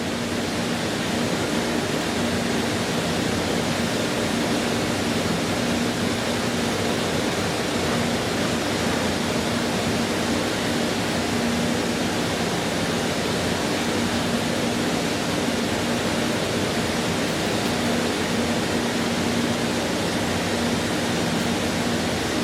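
A woodworking shop machine running steadily: an even rushing noise with a low hum under it.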